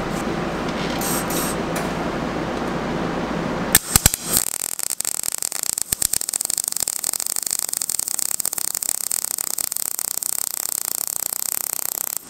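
MIG welder arc on steel square tubing. After a few seconds of steady shop noise, the arc strikes with a few sharp pops about four seconds in. It then settles into a steady, fast crackle and sizzle as the bead is run, with the wire speed set high enough that the welder wants it turned down.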